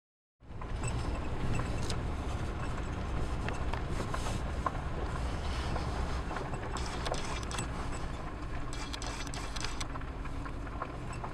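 A vehicle rolling slowly along a gravel road: a steady low rumble with small crackles of gravel, starting abruptly about half a second in.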